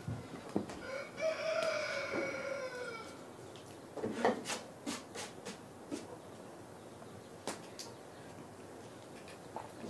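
A rooster crows once, a drawn-out crow of about two seconds that rises slightly and then sinks, followed by a few light knocks and clicks.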